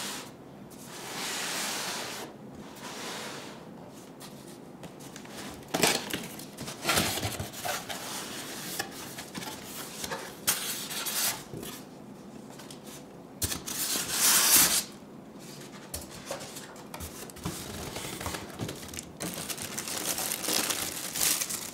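Unboxing handling sounds: a cardboard box turned and slid by hand, its flaps and foam packing opened, then the plastic bag wrapping the machine crinkling. The noises come in irregular bursts of rustling and knocks, the loudest a short rush of noise about two-thirds of the way through.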